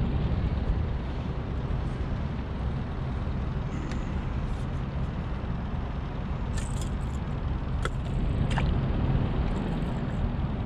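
Steady, uneven low rumble of wind buffeting the microphone on an open boat. A few light clicks come over the middle of it as a spinning reel and rod are handled.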